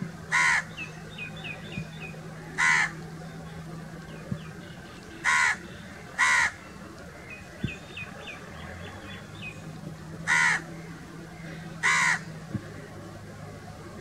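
House crow cawing: six harsh single caws, spaced a second to four seconds apart. Faint quick runs of high chirps from a smaller bird come twice between them.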